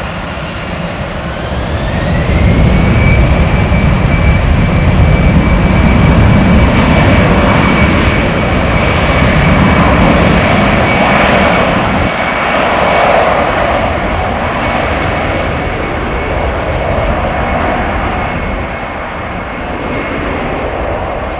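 Airbus A319-111 airliner's twin CFM56-5B turbofans spooling up to takeoff power: a whine rises over the first couple of seconds and then holds steady over a deep rumble. The sound slowly fades in the second half as the jet accelerates away down the runway.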